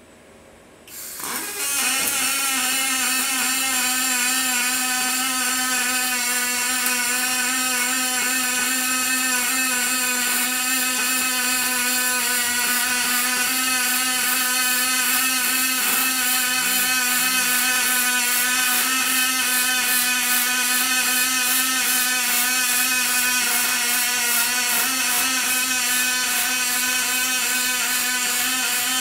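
Robotic MIG welding arc on an aluminium radiator. The arc strikes about a second in, builds over half a second, then runs as a steady loud hum with a hiss.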